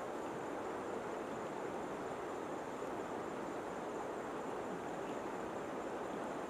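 Steady rush of river water flowing and lapping around people standing waist-deep in it.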